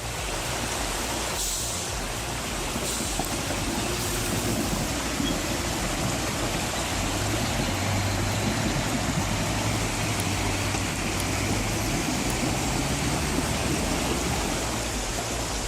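A heavy machine's engine running under a broad rushing noise, its low hum steady through the middle and climbing in pitch near the end.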